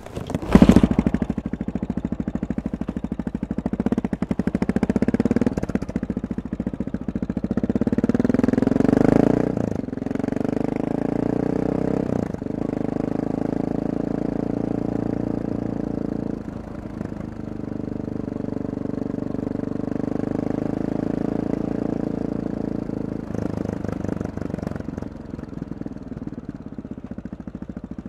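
Honda XR650R's big single-cylinder four-stroke engine heard through its exhaust while riding. A sudden loud burst comes about half a second in, the engine revs up twice over the first ten seconds and drops off, then runs steadily at cruising speed.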